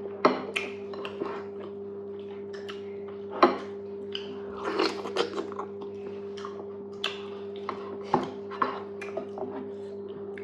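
Close-up eating sounds of fufu and okra soup: irregular wet chewing and mouth smacks, with a few sharper clicks, over a steady low hum.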